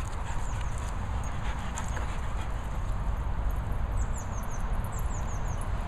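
Steady low rumble on the microphone outdoors, with a few faint soft clicks in the first two seconds. About four seconds in and again a second later, a small bird gives a quick run of three or four high, descending chirps.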